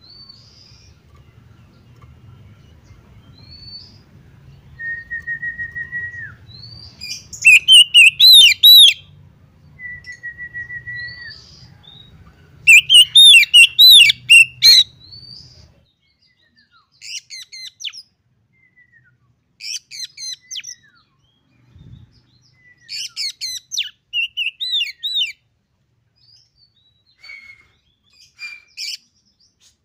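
Oriental magpie-robin (kacer) singing in separate bursts of rapid, varied whistled phrases, loudest about a quarter and half way through. There are two long steady whistles early on, and softer, sparser phrases in the second half.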